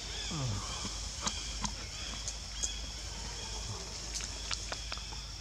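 Outdoor forest ambience: a steady, high-pitched insect drone with scattered light clicks and ticks, and a brief low sound falling in pitch about half a second in.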